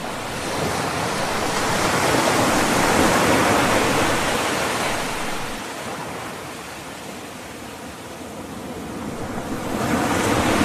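Sea surf: waves washing in, swelling over the first few seconds, ebbing away and swelling again near the end.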